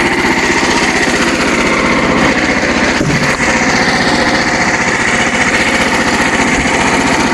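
Small gasoline engine of a portable bandsaw mill running steadily at speed with a fast, even pulsing.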